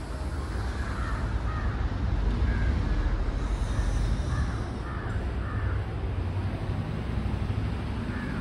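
A bird calling several times in short, separate calls over a steady low rumble.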